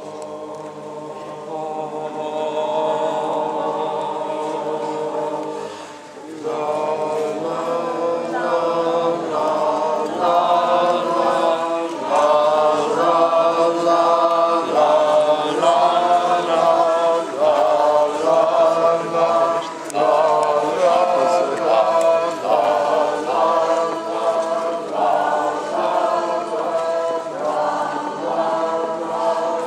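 A group of voices singing together: long held notes for the first six seconds or so, then, after a brief pause, a song in short repeated phrases.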